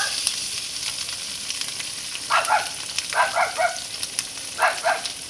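Salted fish frying in hot oil in a steel wok, a steady sizzle. Three groups of short, sharp animal calls in twos and threes cut in over it, about two, three and four and a half seconds in.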